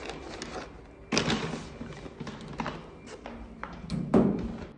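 A series of taps and thuds, the loudest a little after a second in and again around four seconds in.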